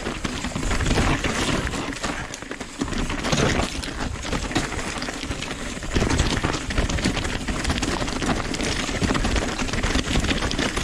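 Nukeproof Dissent downhill mountain bike rolling down a dirt trail: tyres crunching over dirt and rocks, with a dense clatter of small knocks and rattles from the bike. It eases briefly about two seconds in.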